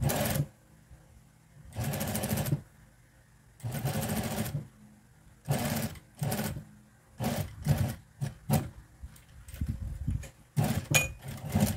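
Juki sewing machine stitching in short runs, starting and stopping as binding tape is fed under the foot. The first few runs last up to about a second each; after the middle they turn into quick, shorter spurts.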